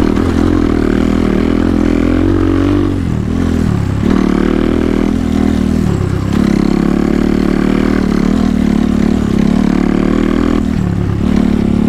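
Dirt bike engine running under way, its note dipping briefly and climbing back three times.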